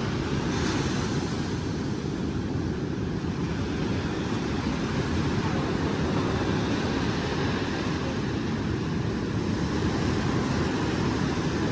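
Steady wind rumbling on the microphone over the wash of waves on a beach.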